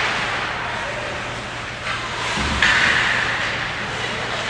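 Ice hockey play in a rink arena: skates scraping over the ice, with a brief sharper hiss of a skate stop about two and a half seconds in, over a steady low hum of the rink.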